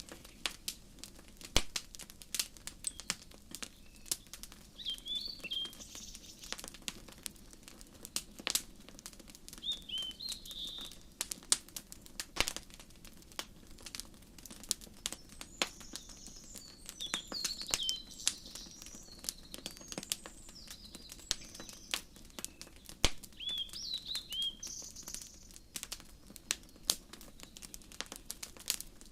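Wood fire crackling with irregular sharp pops over a low steady rumble, mixed with birds calling: short up-and-down chirps every few seconds.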